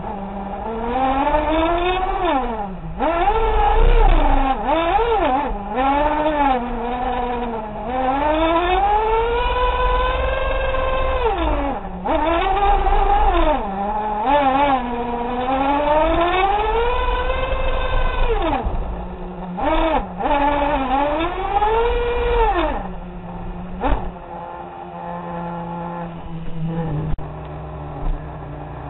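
Radio-controlled monster truck's motor, heard from a camera mounted on the truck, repeatedly rising and falling in pitch as the throttle is worked. For roughly the last ten seconds it settles to a steady low note, with a few short knocks.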